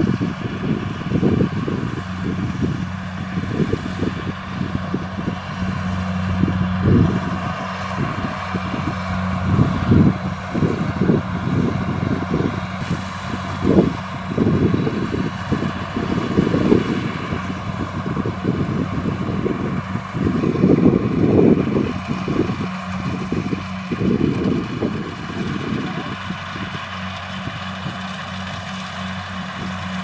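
Kubota DC-70 Plus rice combine harvester running steadily while cutting rice: a steady diesel engine hum with the drone of its threshing machinery. Wind buffets the microphone in irregular low gusts.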